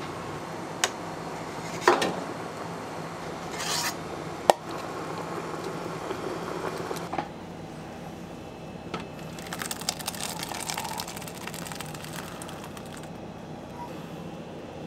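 Wooden spatula knocking and scraping against a stainless steel pot as thick raspberry jam is scraped out, with a few sharp knocks in the first five seconds and lighter rasping scrapes after.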